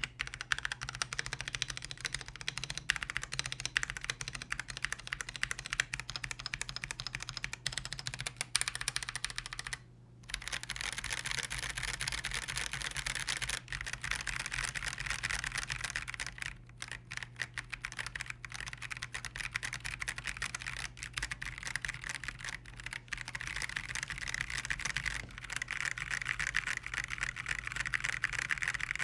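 Typing on an Akko PC75B Plus 75% mechanical keyboard: a fast, continuous stream of key clicks, with a brief pause about ten seconds in.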